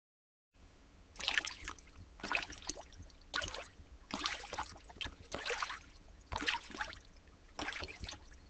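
Slimy, wet squelching sound effect, like a squid writhing in a holding tank: seven separate squishy swishes, about one a second.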